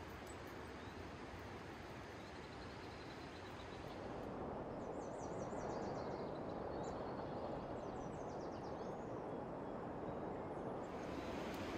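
Outdoor ambience: a steady rushing noise that grows louder about four seconds in. Over it, a small songbird calls in quick series of short, high, falling chirps from about five to nine seconds in.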